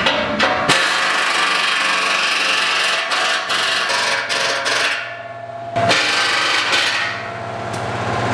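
Hand tools clicking and knocking as a mechanic works under a car on its exhaust, a few sharp clicks over a steady tonal background.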